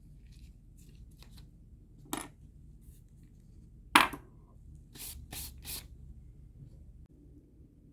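Small hard parts being handled on a work surface: scattered light clicks, a sharp click about four seconds in with a brief metallic ring, then a few short scrapes.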